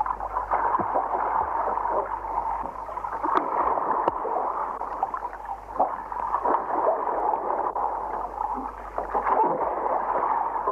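Underwater ambience: a steady watery hiss with scattered faint clicks and a low hum underneath.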